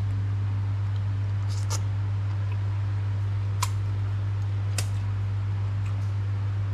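A steady low hum, with a few sharp clicks from eating a cooked oyster by hand: one about a second and a half in, one after three and a half seconds and one near five seconds.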